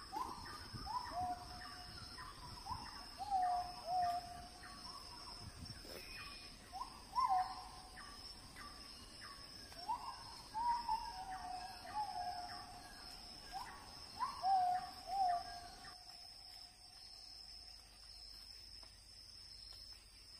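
A bird calling over and over in short notes. Each note rises quickly, then falls and holds, some in quick pairs, and the calls stop about three-quarters of the way through. A steady high-pitched whine runs behind them.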